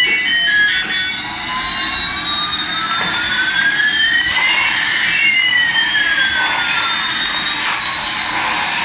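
Electronic jet-engine sound effect: a whine rising slowly in pitch and another falling slowly, crossing about halfway through, over a rushing hiss.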